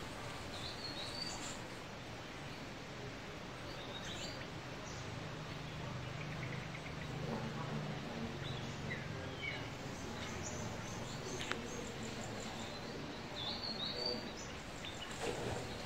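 Outdoor woodland ambience: scattered short bird chirps over a steady hiss, with a faint low hum underneath from about a third of the way in.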